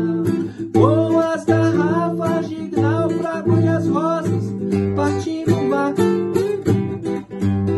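Classical nylon-string guitar being strummed and fingerpicked, with a man singing a wavering melody over it for the first half or so.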